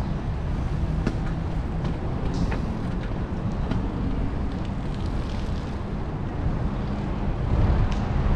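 Wind buffeting the microphone of a camera carried on a moving bicycle, a steady low rumble mixed with tyre and path noise. A few light clicks and rattles come through it.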